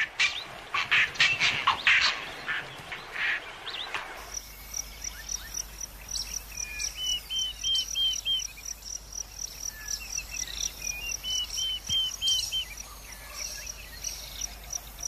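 Grey herons giving harsh, rasping calls for about four seconds. Then open-country ambience: a steady high ticking about four times a second, with two runs of five or six quick rising whistled bird notes.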